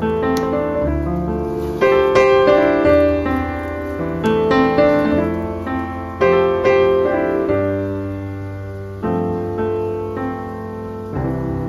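Background piano music: slow chords struck every second or so, each fading away, over low held bass notes.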